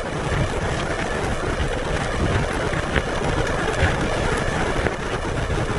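Steady roar of strong storm wind buffeting a car, heard from inside the cabin, with a low rumble underneath.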